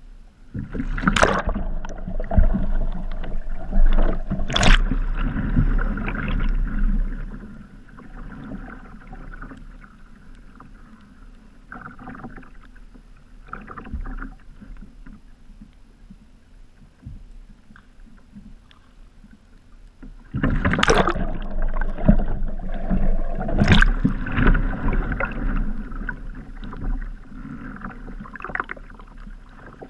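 Water splashing and churning around a sea kayak's front-deck camera as the paddler capsizes and rolls back up. This happens twice: a loud stretch of sharp splashes at the start and another from about two-thirds through, with quieter lapping water between.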